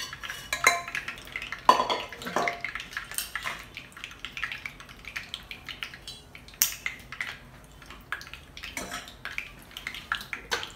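Steel spoon scraping and clinking against a stainless-steel bowl as leftover masala is spread over mutton chops, with a louder clank about two seconds in and another near seven seconds.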